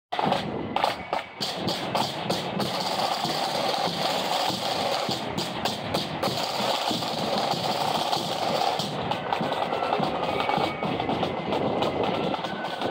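Marching band playing on the march, drums marking the beat under the music.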